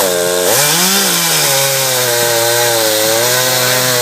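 Chainsaw engine running at high revs: it rises in pitch about a second in, then drops and holds a steady lower pitch under load as it cuts through a log.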